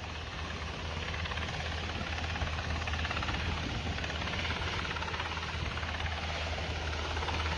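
MH-60T Jayhawk helicopter hovering low, its main rotor chopping steadily with a deep thrum, slowly growing louder.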